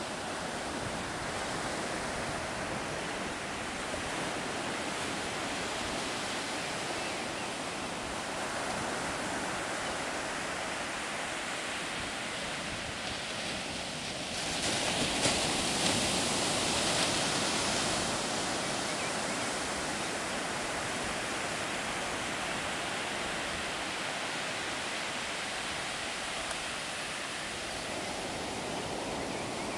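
Ocean surf breaking and washing up a sandy beach, a steady rush that surges louder for a few seconds about halfway through.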